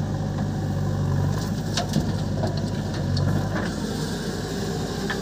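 JCB 3DX backhoe loader's diesel engine working as it digs soil and dumps it into a tractor trolley. A steady drone that eases a little about a second in and swells again around three seconds, with a few short knocks around the middle.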